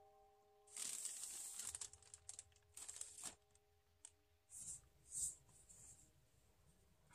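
Kraft paper bag rustling and crinkling as it is handled for about two and a half seconds, followed by two short soft rustles as a cardboard box is picked up, over faint held notes of background music.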